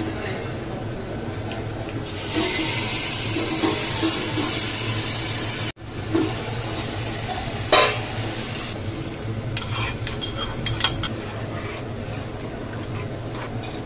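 Cooking-pot sounds: a steel plate lid is handled on an aluminium pressure-cooker pot and a spoon stirs thick bhaji, with a few sharp metal clinks in the second half. A steady sizzling hiss runs from about two seconds in until about nine seconds.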